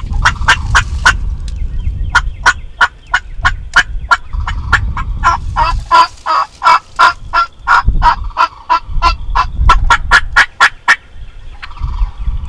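Turkey yelping and cutting: a long, fast run of sharp, separate notes, about three a second, breaking off near the end, with wind rumbling on the microphone.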